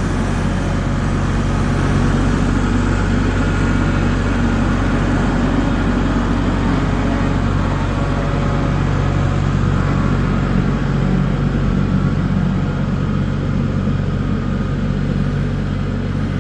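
Tractor engine running steadily with an even low hum.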